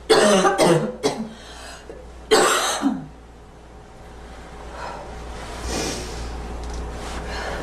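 A girl coughing: a quick run of three coughs, then one more harsh cough a little over two seconds in. A faint steady rushing noise follows.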